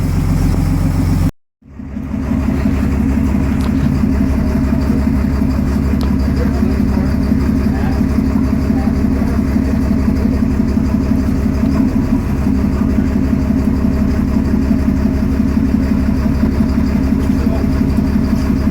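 Boat engine idling steadily with a low, even hum. The sound cuts out for a split second about a second in, then resumes.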